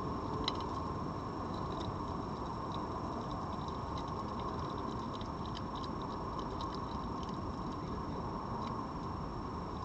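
Faint, irregular crisp clicks of a red fox crunching dry kibble, over a steady hiss.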